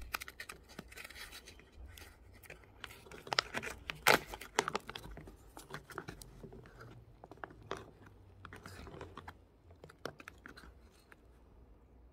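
A Decathlon Forclaz freeze-dried meal pouch is pulled open at its seal, and then a spoon stirs and scrapes the rehydrated rice and chicken curry inside it. The paper-and-foil pouch crinkles. The sound is a string of sharp crackles and scrapes, loudest about four seconds in.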